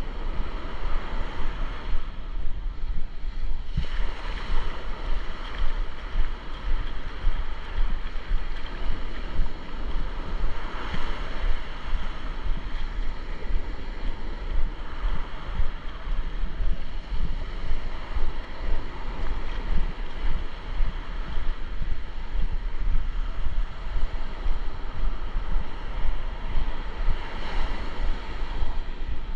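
Ocean surf washing onto the beach, swelling now and then as waves break, with wind buffeting the microphone as a constant low, gusting rumble.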